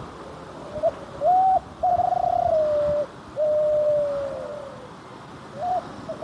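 Spotted dove (derkuku) cooing its song phrase, 'deg kutruuu kuuu': a short opening note, then a brief held note and two long drawn-out coos that each slide slightly downward, with the next phrase starting near the end.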